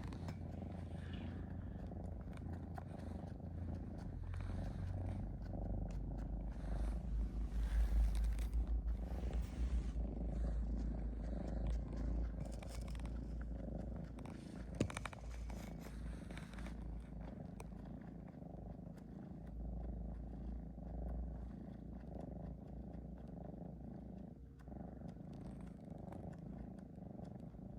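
Steady low rumbling snore of a sleeping pet, swelling louder for a few seconds partway through, with one sharp click about halfway.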